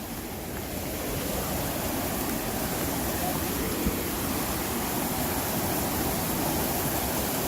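Steady rushing of running water, getting louder about a second in, with one short knock about four seconds in.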